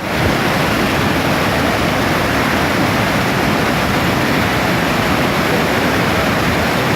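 Steady, loud rushing of water, like a waterfall or fast-flowing stream, running without a break.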